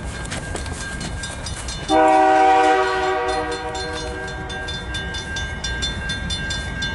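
Approaching Canadian National freight locomotive sounding its horn: one long blast of several notes together that starts suddenly about two seconds in, is loudest for about a second, then fades away. A steady low train rumble runs underneath.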